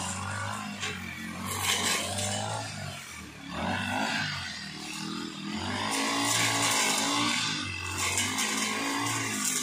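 Petrol brush cutter engine running at high speed, its pitch rising and falling as the cutting head swings through tall dry grass, with bursts of hiss from the grass being cut.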